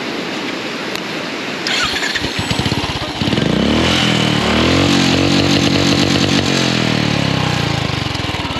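Royal Enfield single-cylinder motorcycle engine cranked about two seconds in, catching at about three seconds and then running steadily, with water in its exhaust silencer. A river rushes underneath.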